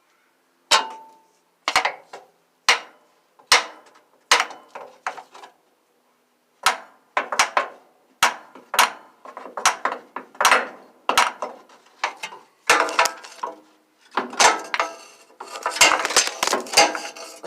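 A hammer striking a truck's starter motor over and over, each blow a sharp metallic clank, some with a short ring. The blows come in runs about half a second to a second apart, pause briefly midway, then come faster near the end. This is the old trick of tapping a dead starter, one that gives no click at all, to free a stuck solenoid or brushes.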